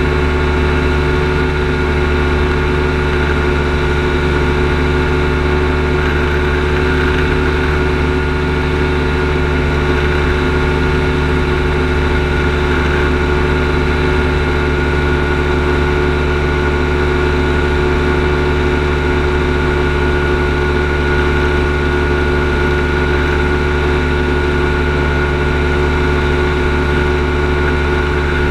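Kolb Firestar II ultralight's two-stroke engine and pusher propeller running steadily in cruise flight, one unchanging drone heard from the cockpit.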